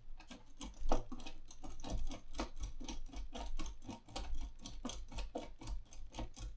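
Screws being driven by hand into the landing-gear mount of a foam RC plane, a quick run of clicks, about four or five a second.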